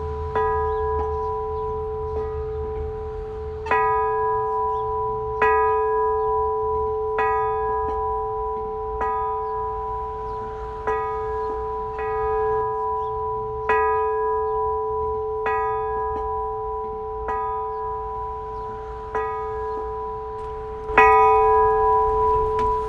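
A church bell tolling, struck roughly every two seconds, each stroke ringing on under the next as a steady hum. The strongest stroke comes near the end.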